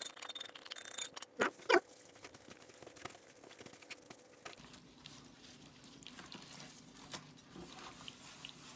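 Olive-oil and herb marinade poured from a stainless-steel bowl onto beef roasts in a metal roasting pan, with two sharp knocks about a second and a half in. After that, soft wet squishing and patting as gloved hands rub the marinade into the meat.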